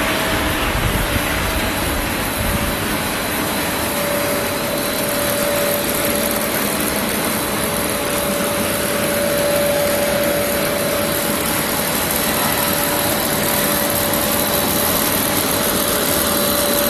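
Machinery of a dry pet food production line running together: a steady mechanical din with a constant whine underneath.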